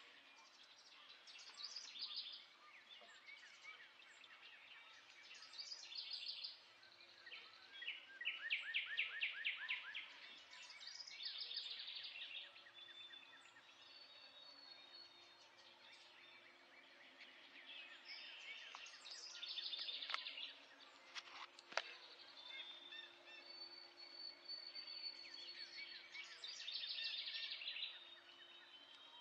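Songbirds singing at dawn: trilled and chirping songs from several birds every few seconds, the loudest about eight seconds in. One sharp click comes a little past twenty seconds.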